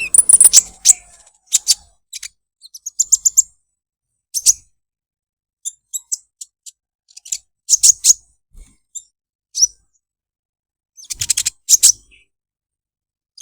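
A kolibri ninja, a small sunbird, calling in short, very high-pitched chirps and quick rattling trills, given in bursts with pauses of a second or more between them.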